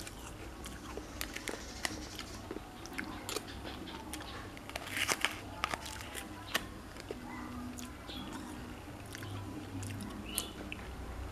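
Eating homemade ice cream from a small plastic cup with a metal spoon: scattered small clicks, scrapes and crackles of spoon and mouth, with a quick cluster about five seconds in.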